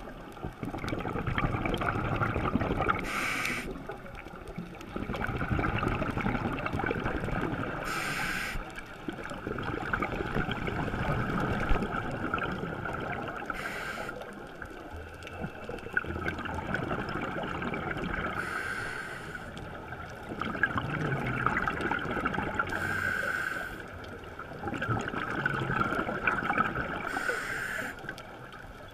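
Scuba regulator breathing heard underwater: a short hiss of inhaling through the demand valve, then a long bubbling exhale, repeating about every four to five seconds, six breaths in all.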